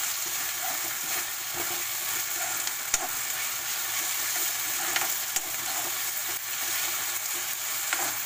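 Stir-fried vegetables in soy and tomato sauce sizzling in a pan while a steel spatula stirs them, with a few sharp clicks as the spatula strikes the pan.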